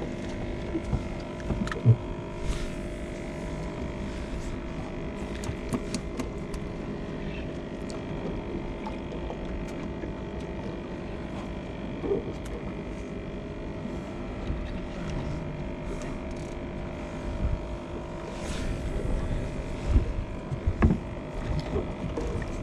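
A steady motor hum holding several even tones over a low rumble, with scattered light clicks and a few louder knocks near the end.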